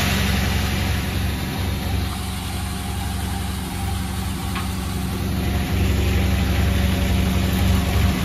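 Sawmill machinery running with a steady low hum.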